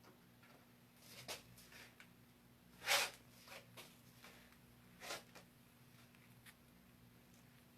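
A few short rustling scrapes, the loudest about three seconds in, over a faint steady electrical hum.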